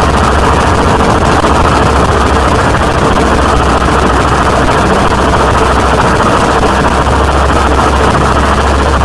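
Harsh industrial noise music: a loud, unbroken wall of distorted noise over a heavy low drone, with no beat or melody.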